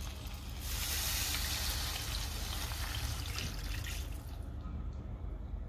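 Milk poured from a steel mug in a stream into a hot stainless-steel pan of spiced round gourds, splashing onto the pan and the roasted spices. It starts about half a second in and stops about four seconds in.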